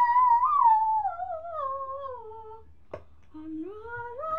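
A young girl humming while brushing her teeth, toothbrush in her mouth: one long tone sliding slowly downward, a short click about three seconds in, then a tone sliding upward near the end.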